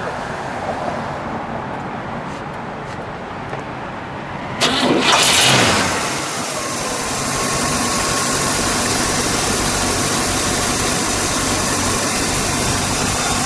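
The 1960 Cadillac Series 62's 390 cubic-inch V8 is started about halfway through: it catches with a brief loud flare, then drops back and settles into a steady idle.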